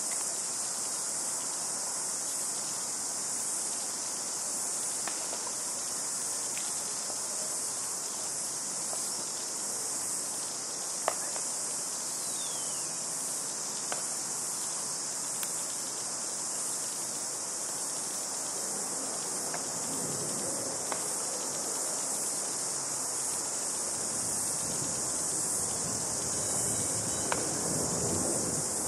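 A steady, high-pitched chorus of insects shrilling without a break, with a few faint clicks and a low rumble rising near the end.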